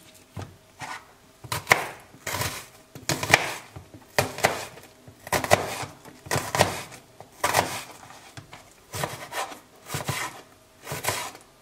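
Kitchen knife slicing through a raw onion and knocking on a wooden cutting board, one cut roughly every second.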